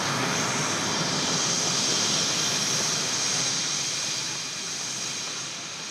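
Aircraft engine noise from a display aircraft passing in the air, steady with a high whine, gradually fading over the last couple of seconds.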